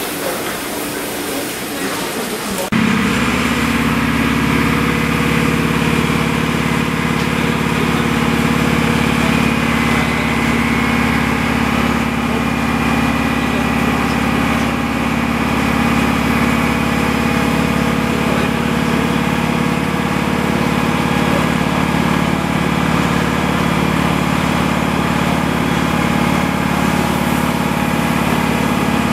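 Cab of the ÖBB 1020 electric locomotive at a standstill: its machinery, the cooling blowers and transformer, hums steadily with several held tones. The hum starts abruptly about three seconds in; before that there is mixed platform noise.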